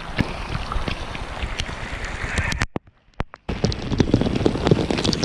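Rain falling on an outdoor swimming pool, heard close on a waterproof action camera's microphone: a steady hiss of water with many sharp drop ticks and some wind noise. The sound drops out almost completely for under a second a little past the middle, then resumes.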